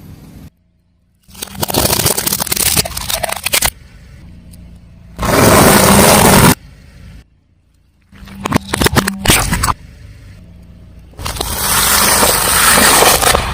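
A car tyre rolling over and crushing objects: four separate bursts of crunching, cracking and scraping, with a faint low engine hum between them.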